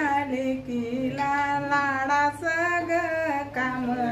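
A woman singing a melody in long held notes, with short breaks between phrases.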